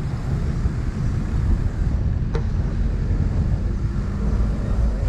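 Wind buffeting the microphone over the steady low rumble of a moving vehicle, with one sharp click about two and a half seconds in.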